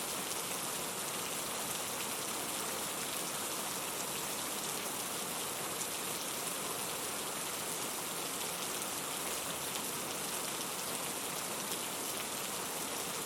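Steady rain falling, an even hiss with many fine drop patters on surfaces.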